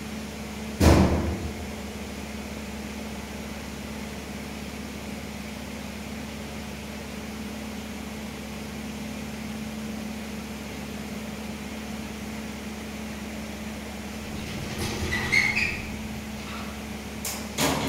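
Steady background hum with a constant low tone, broken by one sharp knock about a second in and a few brief clicks and knocks near the end.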